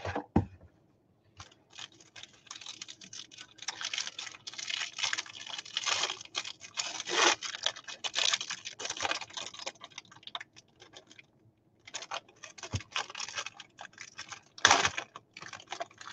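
Trading cards being flipped through and slid against one another by hand: a run of quick dry clicks and rustles, with a short pause about eleven seconds in.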